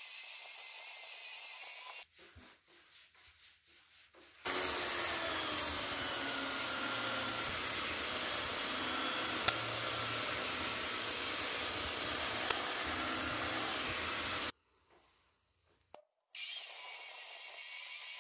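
Handheld electric belt sander running, its abrasive belt rubbing across a raintree wood slab in a steady sanding noise. The sound drops away twice, once about two seconds in and again near the end.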